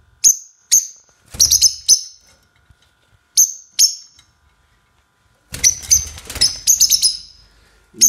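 Peach-faced lovebirds giving short, shrill chirps, singly and in quick runs of two or three. About five and a half seconds in comes a denser, noisier stretch of rapid chirping.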